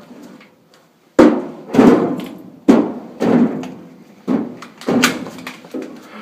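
A run of sharp knocks and bangs at a washing machine as laundry is loaded into it and the machine's lid and cabinet are handled, about eight irregular hits over four seconds, each with a short ring.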